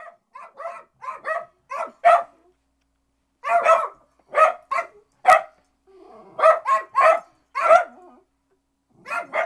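Two small dogs barking at a door in a rapid string of short, sharp barks, many coming in quick pairs, with a pause of about a second a couple of seconds in.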